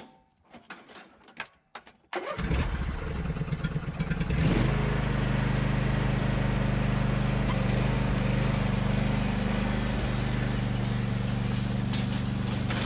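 Riding lawn tractor's small engine cranked about two seconds in, catching after a couple of seconds of ragged turning over, then running steadily as the tractor pulls away. A few light clicks and knocks come before the start.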